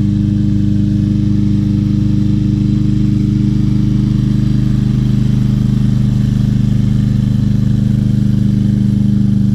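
Craftsman M320 lawn mower's 163cc Briggs & Stratton single-cylinder engine running steadily at a constant speed. It runs smoothly, the sign of a healthy engine despite a clogged air filter.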